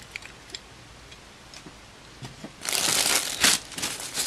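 Plastic Ziploc bags crinkling as they are handled, starting a little over halfway in after a few faint clicks.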